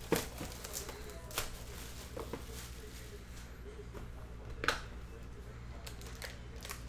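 Cardboard hobby boxes of 2021 Panini Limited Football cards being handled and one opened: a few sharp taps and knocks, the loudest at the start, one more about a second and a half in and another near the middle, over a low steady hum.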